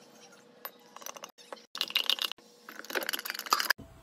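A metal spoon stirring coffee in a glass mason jar, clinking rapidly against the glass in two spells, the second one longer.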